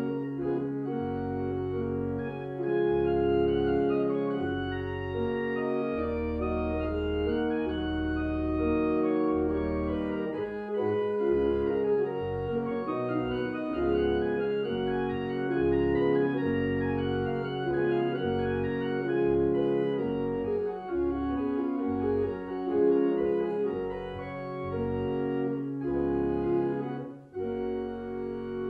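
Church organ playing a closing voluntary: held, changing chords over deep bass notes, with a short break near the end.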